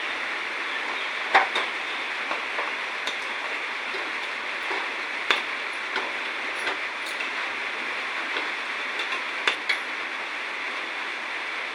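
Metal kitchen utensils and pots clinking now and then, a few sharp clicks over a steady hiss.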